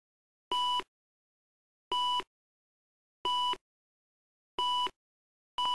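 Film-leader countdown beeps: four short, identical steady beeps about a second and a third apart, each with a faint hiss. A fifth beep starts near the end, this one stuttering rapidly.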